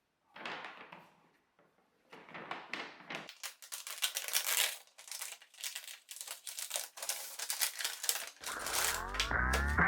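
Shoe-box packaging being handled and opened: paper and plastic crinkling and rustling with many small clicks and tears, in two bouts with a brief pause between. Background music with a bass line comes in near the end.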